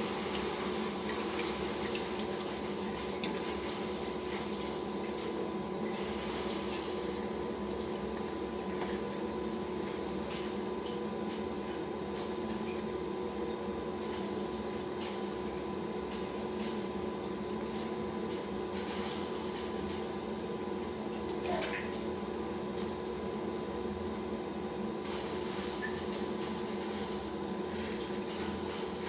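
Aquarium water pump or filter running with a steady hum, water trickling and splashing over it. Scattered faint clicks throughout, and one slightly louder splash about three-quarters of the way through.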